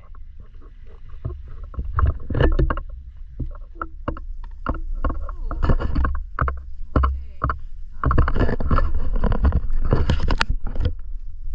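Water splashing in irregular bursts, growing denser near the end, over a steady low rumble.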